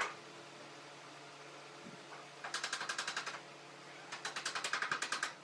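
Cordless driver driving screws into wood: two bursts of rapid, even clicking, about a second each, one in the middle and one near the end.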